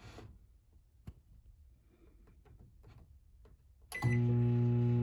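A few faint clicks, like microwave keypad buttons being pressed, then about four seconds in a short beep and the microwave starts running with a steady, loud hum.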